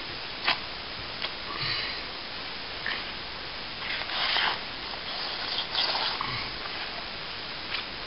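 Wet 80-grit sandpaper rubbing on a plaster cornice, in a few short scratchy strokes, with light clicks.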